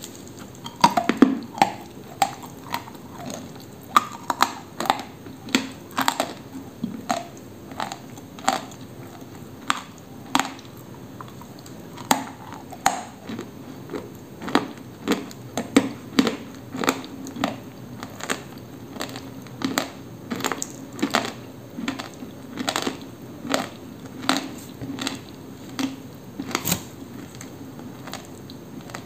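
Dry Koksol edible clay being bitten and chewed close to the microphone. A dense cluster of loud crunches comes about a second in as a piece is bitten off, followed by a long run of sharp, dry crunches, about one to two a second, as the clay is chewed.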